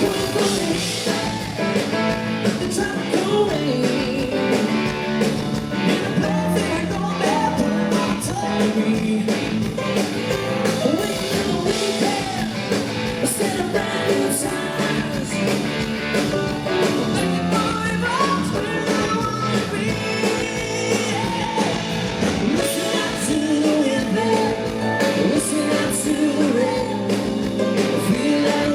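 Live rock band playing an up-tempo song, with amplified guitars, bass, drums and a singing voice.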